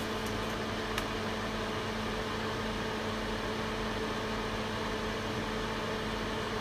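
Steady whir of a small electric fan with a constant low hum, and one faint click about a second in.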